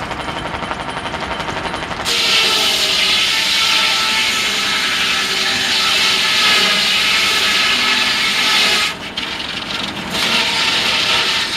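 Large circular head saw of a steam-tractor-powered sawmill, spinning with a rapid steady pulsing, then ripping lengthwise through a pine log from about two seconds in: a loud, steady hissing cut. The cut drops off briefly about nine seconds in, then picks up again.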